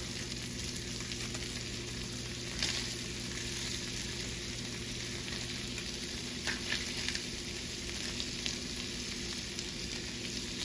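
Panfish fillets and green beans sizzling steadily in butter in a cast-iron skillet, with a few brief louder crackles and clicks as the pieces are moved about.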